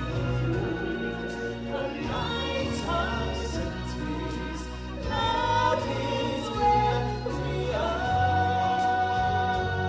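Stage show music: a choir singing over a backing track with a steady bass line, holding one long note near the end.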